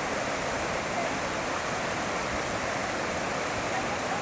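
Waterfall's rushing water, a steady, even rush.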